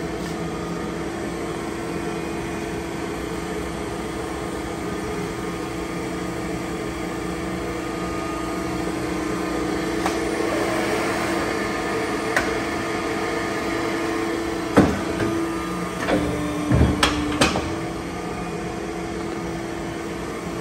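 Polar 115ED hydraulic paper cutter running, its hydraulic pump motor giving a steady hum with a held tone. About fifteen seconds in come a few sharp knocks and clunks from the machine, and the hum briefly drops in pitch before settling again.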